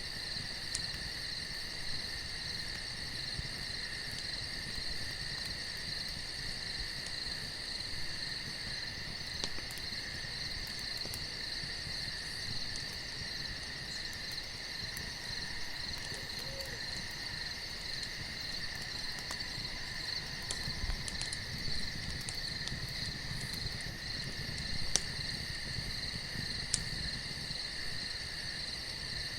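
Steady, unbroken chorus of night insects, high and even, over a low rumble, with a few faint sharp clicks, the clearest two near the end.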